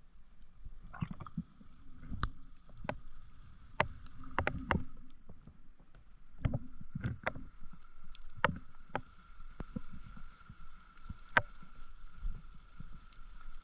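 Underwater sound picked up through a camera housing while a spearfisher swims over a reef: a low rumble of moving water that swells and fades, broken by about a dozen irregular sharp clicks and knocks, over a faint steady high hum.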